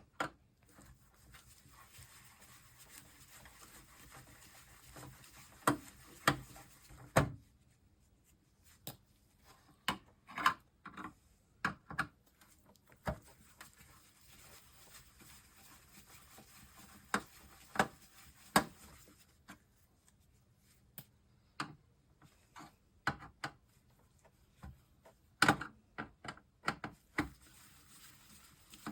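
Irregular clicks, taps and knocks of hand tools and parts being handled while a circuit board is worked loose from a monitor's chassis, some coming in quick little clusters.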